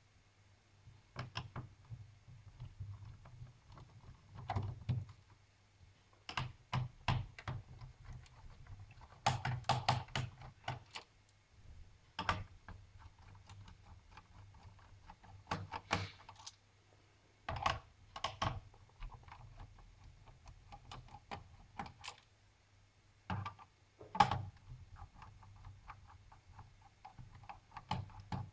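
Irregular clicks and knocks of a screwdriver and small screws against a Lenovo IdeaPad G560's plastic case as the screws around its perimeter are taken out, with a few louder thunks.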